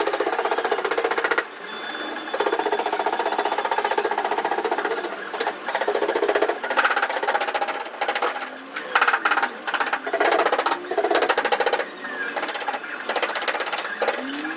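A power tool with a rapid hammering action running in repeated bursts of a second or two, starting and stopping. Short squeaks sound between some of the bursts.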